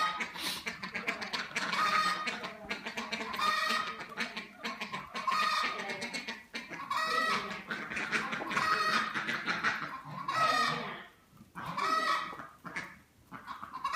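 A flock of domestic fowl in a farmyard, calling again and again, with short pitched calls following one another, loud at times, and a brief lull near the end.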